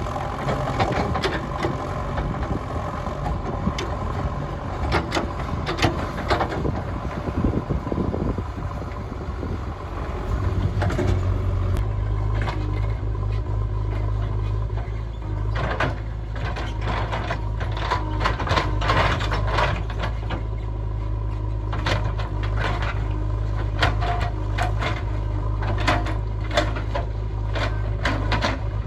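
JCB 3DX backhoe loader's diesel engine running under work, with many scattered knocks and clatters over it. About eleven seconds in, the engine settles into a steadier, stronger low hum.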